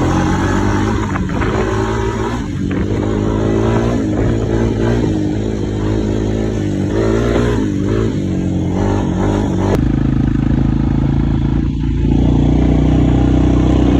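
Honda TRX 250X ATV's single-cylinder four-stroke engine running under load on a trail, its pitch rising and falling with the throttle and gear changes. It changes abruptly to a steadier, even drone about ten seconds in, and gets louder a couple of seconds later.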